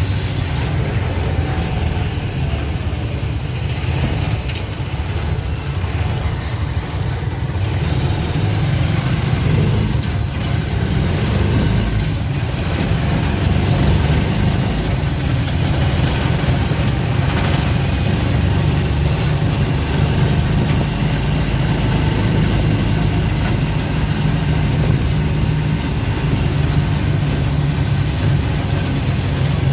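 Steady low rumble of a running motor vehicle, engine and road noise.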